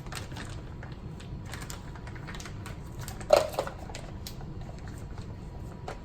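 A spoon clicking and scraping against a bowl while curry paste is added to the chicken, with one louder knock about three seconds in.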